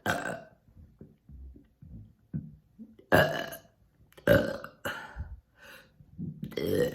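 A person burping repeatedly: one loud burp right at the start, then a run of several loud burps close together from about three seconds in.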